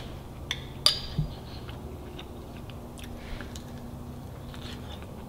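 Someone chewing a mouthful of stewed rabbit backstrap, with scattered small mouth clicks and a sharper click about a second in.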